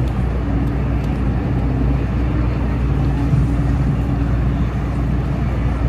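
Steady low rumble of engines on the river and in the city, with a steady droning tone coming in about half a second in.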